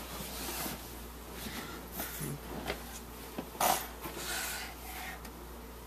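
Rustling of a blanket and clothing with a few soft knocks as a toddler moves about in a wooden crib; the loudest rustle comes about three and a half seconds in.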